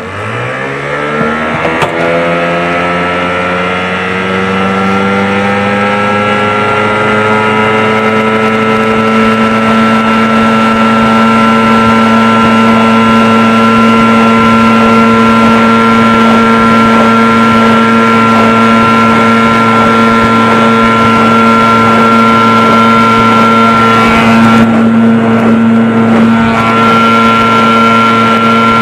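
1988 Evinrude 15 HP two-stroke outboard opened to full throttle: its pitch climbs quickly over the first two seconds, keeps rising slowly as the boat picks up speed, then holds steady at high revs.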